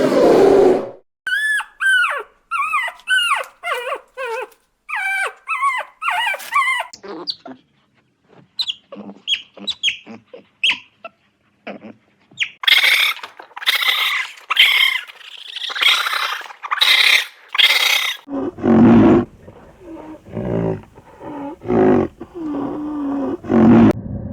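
A succession of different animal calls: short, pitched yelps that rise and fall, then faint chirps, then a run of harsh, raspy cries, and lower calls near the end.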